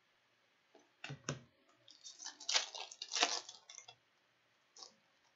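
Rustling and crinkling of a hockey card pack wrapper and cards being handled, in a few short bursts between about one and four seconds in.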